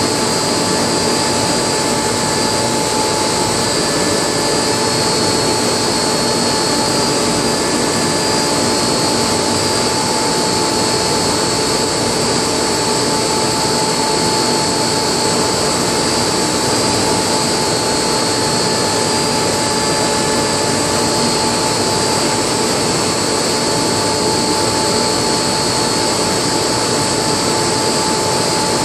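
Steady, unbroken hiss and hum of a continuous TIG weld on copper-nickel pipe, with the welding equipment and workshop machinery running as one even noise.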